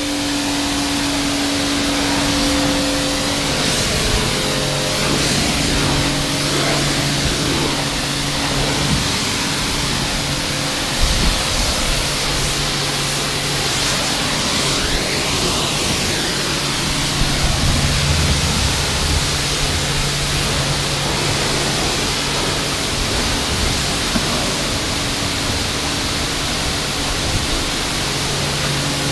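Kärcher K4 pressure washer running, its pump humming steadily while a snow foam lance sprays foam with a continuous hiss.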